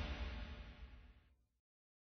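The tail of a news intro theme fading away, ending about a second and a half in, followed by dead silence.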